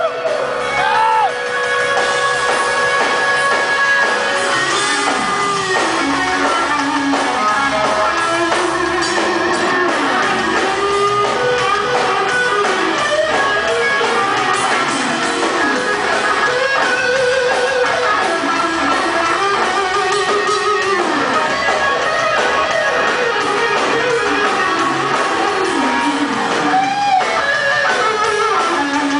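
Live rock band playing, led by an electric guitar whose notes bend and slide up and down in pitch over the rhythm section, recorded from the audience in a hall.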